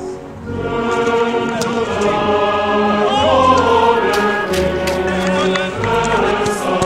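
Music with sustained, choir-like voices holding chords, joined by a few sharp clicks and swooping tones.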